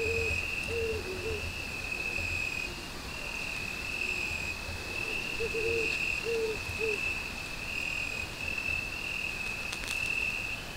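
Night insects, crickets or bush-crickets, trilling steadily at a high pitch in pulses of about a second each. Over them come two groups of three or four short, low calls from a distant animal, one near the start and one about five to seven seconds in.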